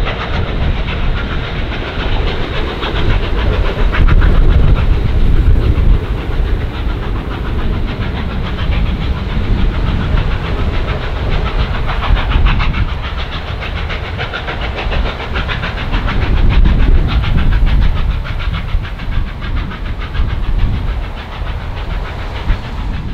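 Steam locomotive R707 and its train of heritage passenger carriages passing at speed. A heavy, steady rumble with steel wheels clicking rapidly over the rail joints.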